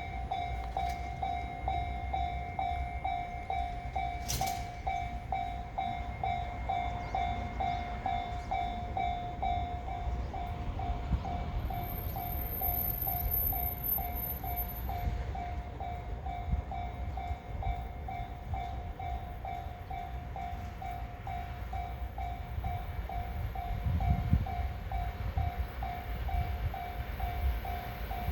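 Japanese level-crossing warning bell ringing steadily at about two dings a second, over the low rumble of a JR 383 series limited express electric train running through the crossing.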